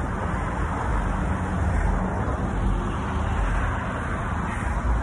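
Steady road traffic noise from cars driving past on a wide multi-lane street: engine and tyre noise.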